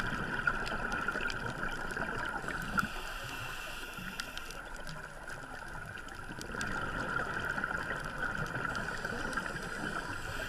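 Underwater scuba diving sound heard through a camera housing: the diver's regulator breathing, a hiss with bubbling and gurgling. It swells for the first couple of seconds and again from a little past the middle.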